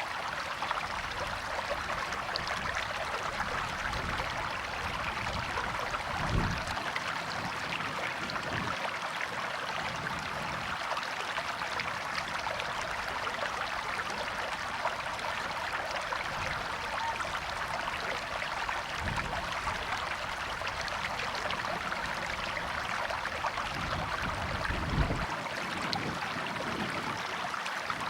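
River water flowing steadily, an even rushing wash with no let-up, broken by two brief low rumbles, one about six seconds in and one near the end.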